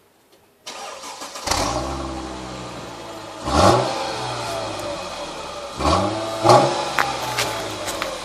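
Mercedes-Benz SL 350's V6 exhaust as the engine is started: a brief crank, then it catches with a flare about a second and a half in and settles to idle. It is then revved in short throttle blips, about two, four and a half and five seconds after catching.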